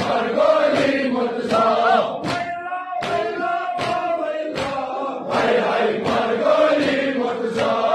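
A crowd of men chanting a noha, a Shia lament for Husayn, in unison, with rhythmic slaps of hands striking chests in matam about twice a second.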